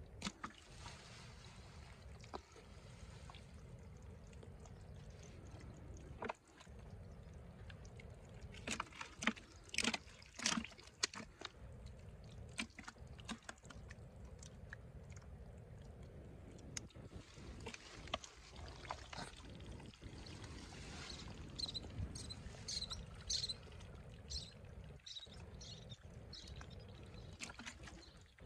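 Hands squelching and sloshing through thick wet mud and muddy water, with clusters of sharp wet slaps and splashes about a third of the way in and again about three quarters through.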